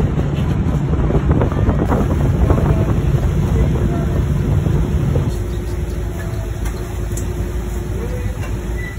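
Steady engine rumble with wind buffeting the microphone. About five seconds in, the low drone gives way to a higher steady hum.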